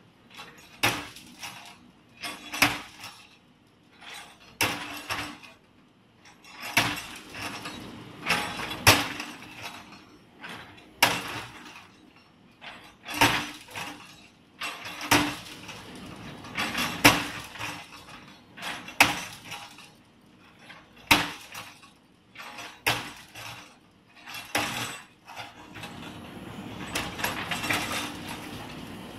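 JCB 3DX backhoe loader's bucket repeatedly striking and breaking a collapsed concrete slab: a sharp crash about every two seconds, with rubble clinking and rattling after each blow. The diesel engine runs steadily underneath, and near the end the blows give way to a denser, continuous clatter of debris.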